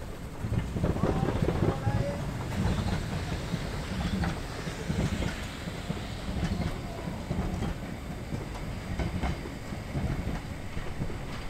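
Metre-gauge railway coaches rolling past on an adjacent track: a low, uneven wheel rumble with scattered clicks from the rail joints, growing louder about half a second in.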